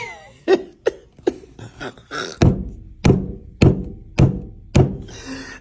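A run of about nine sharp knocks, evenly spaced at roughly one and a half a second.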